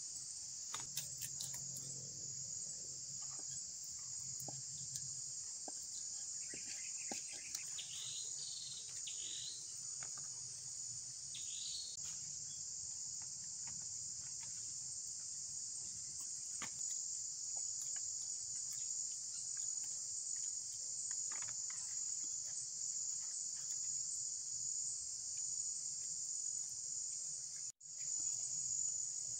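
Steady, high-pitched chorus of forest insects that never lets up. A few short chirps come through between about 7 and 12 seconds in, with faint scattered clicks. The whole sound drops out for an instant near the end.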